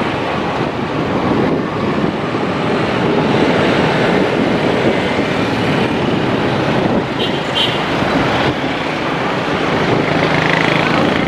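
Steady street-traffic noise from motorbike and car engines, with wind rushing over the microphone as it moves along with the traffic. Two short high beeps come about halfway through.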